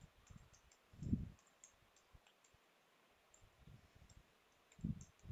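Faint computer keyboard typing and mouse clicks as a password is entered, with two soft low thumps, about a second in and near the end.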